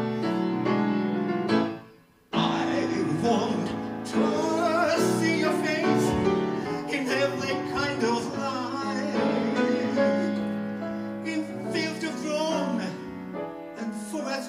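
Grand piano playing an instrumental interlude in a slow jazz ballad. About two seconds in, a chord dies away to a brief silence before the playing resumes abruptly.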